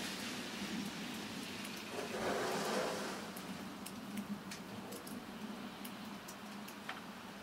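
Quiet ambience: a steady hiss over a low hum, a brief rustling noise about two seconds in, then scattered light ticks.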